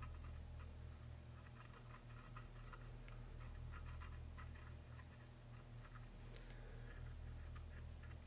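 Faint scratching and tapping of a liquid chrome marker pen's tip dabbed repeatedly over a small toy-car engine part, over a low steady hum.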